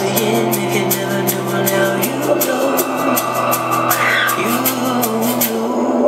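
A slow pop song playing: a held bass note and a sliding melody line over a steady ticking beat, which drops out near the end.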